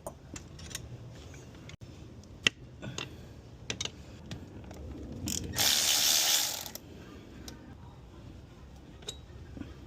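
Hand ratchet clicking as it works a 12 mm bolt, in short irregular runs of clicks, with one louder rasping burst lasting about a second around the middle.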